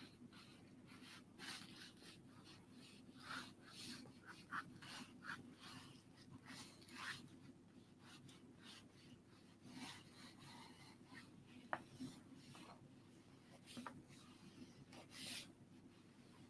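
Faint scratching of a pen sketching on paper: short irregular strokes, with a sharp click about twelve seconds in.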